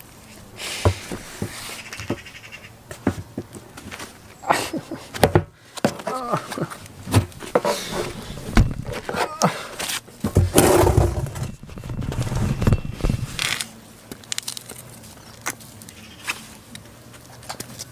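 A goat handled at close range: a string of knocks and rustles as it brushes and shifts against the man and the camera, with a few short pitched goat calls around six seconds in and a louder rough one about two-thirds of the way through.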